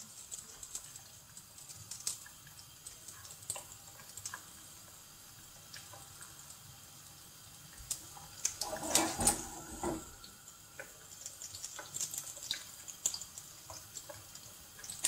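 Yufka börek shallow-frying in about a finger's depth of hot oil in a pan: sizzling with scattered crackles and pops, louder for a second or so about nine seconds in.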